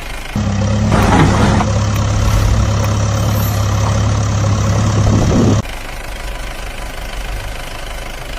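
An engine running steadily at idle. It jumps louder suddenly for about five seconds, then drops back abruptly.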